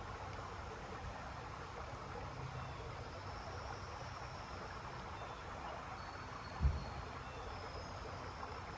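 Steady rain falling, an even hiss, with one low thump about two-thirds of the way through.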